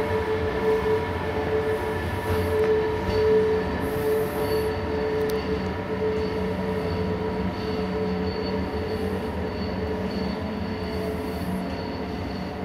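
SBB Class Re 460 electric locomotive propelling a double-deck passenger train out of the station, its steady whine of several tones over a rail rumble slowly fading as it draws away.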